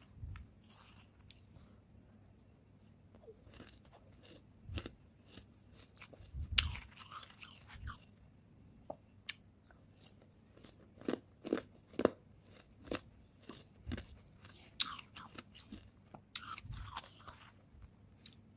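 Powdery freezer frost being crunched and chewed, in irregular clusters of sharp crunches with quieter pauses between.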